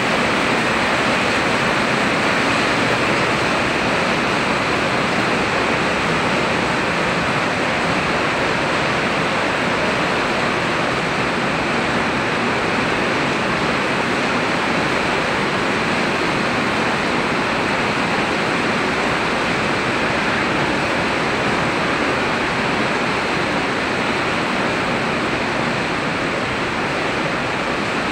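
Heavy rain falling steadily, an even, unbroken hiss of rain with water running off a roof's eaves.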